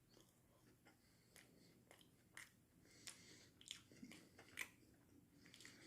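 Faint chewing of breaded chicken nuggets: scattered short, soft crunches and mouth clicks, a little louder in the second half.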